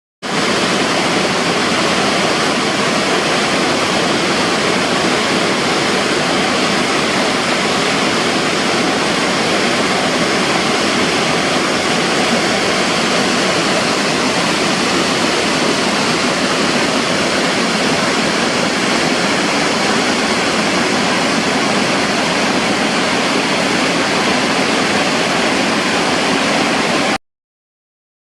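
Waterfall: a steady rush of falling water that cuts off suddenly near the end.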